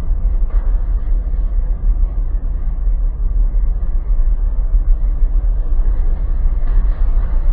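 Steady heavy low rumble aboard a bulk carrier driving through storm waves: wind, sea and ship noise with no clear pitch and a fast-wavering level.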